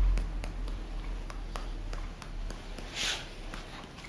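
Barber's cloth cape rustling as it is tugged and handled at the client's neck, with light taps and clicks, and a short swish about three seconds in.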